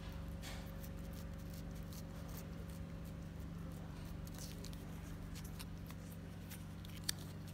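A cat licking a squeeze-tube cat treat: faint, quick, wet tongue clicks, with one sharper tick near the end.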